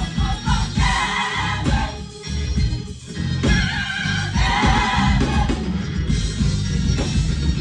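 Live gospel music: a band with steady bass notes under singing voices that come in and out in phrases.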